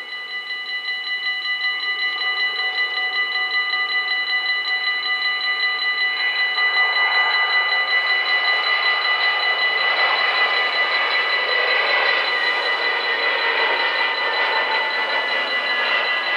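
The two electronic warning bells of a Dutch automatic half-barrier level crossing ringing rapidly and steadily, signalling an approaching train while the barriers lower. They grow louder over the first couple of seconds, and from about seven seconds in a broad rushing noise rises and fades beneath them.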